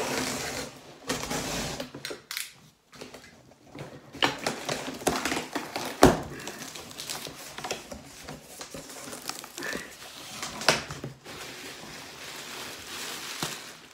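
A cardboard shipping box being opened by hand: the taped top seam is worked open and the flaps are pulled apart, with cardboard scraping and rustling and a string of sharp clicks. A single sharp snap about six seconds in is the loudest sound.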